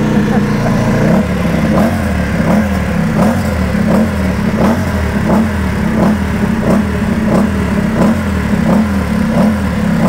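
Ducati Panigale V2 Supersport race bike's twin-cylinder engine with a racing exhaust. It idles, then from about a second in is revved in quick, even throttle blips, about three every two seconds.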